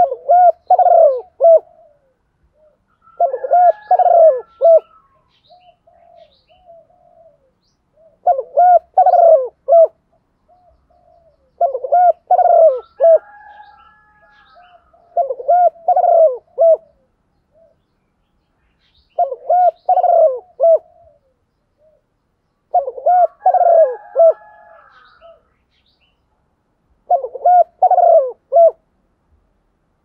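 Spotted dove cooing: about eight phrases of low, throaty coos, repeating roughly every four seconds, with fainter higher-pitched notes over a few of the phrases.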